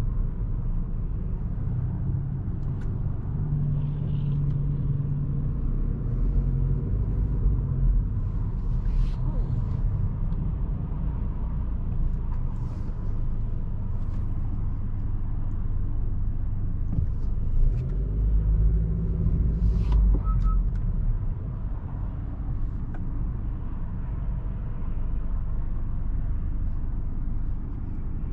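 A 2022 Honda Accord Sport's turbocharged 1.5-litre four-cylinder and road noise, heard inside the cabin as a steady low rumble. The engine note swells briefly about 4 seconds in and again around 18 seconds.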